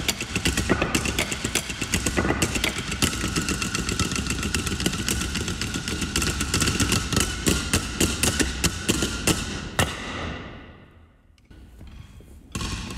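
Percussion ensemble playing drumsticks on wooden stools: a dense, rapid clatter of wooden strikes in interlocking patterns. It fades away about ten seconds in.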